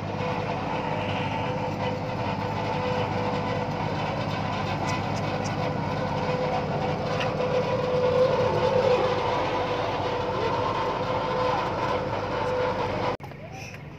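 A large engine running steadily at a constant speed, a continuous drone that swells a little about eight seconds in and cuts off suddenly near the end.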